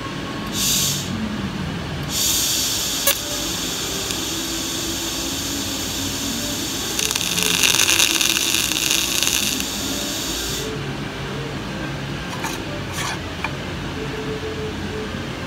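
TIG welding arc at 100 amps on brass: a short hiss just after the start, then a steady arc hiss for about eight and a half seconds, louder in the middle, that cuts off suddenly when the arc is broken.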